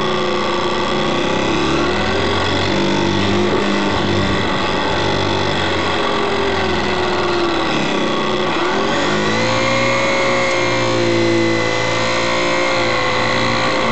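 Electric motor and propeller of a HobbyZone Super Cub RC plane in flight, heard from an onboard camera: a steady whine over wind rush. The pitch wavers and dips, then rises a little past halfway and holds higher as the throttle is opened.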